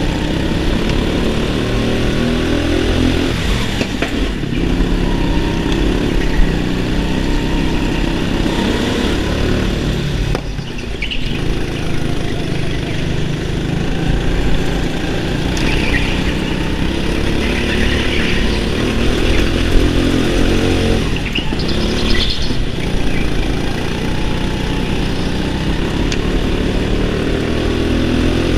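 Go-kart engine heard from the driver's seat, running hard and revving up and down as the kart accelerates out of corners and lifts off into them.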